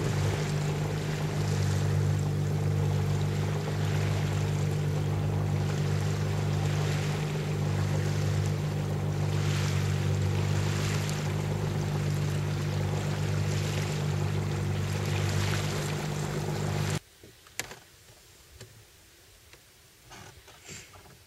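A Cornish Crabber sailing boat's engine running steadily under way, with water rushing along the hull. About seventeen seconds in it gives way abruptly to a much quieter stretch with a few light clicks and taps.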